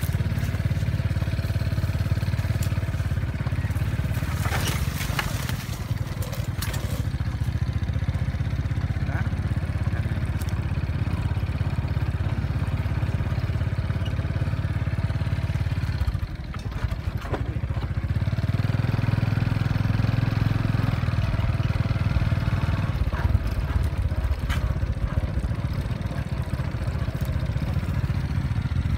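Small motorcycle engine running steadily while riding along a rough dirt track, its note swelling for a few seconds about two-thirds of the way through. A few short knocks and clatters about five seconds in.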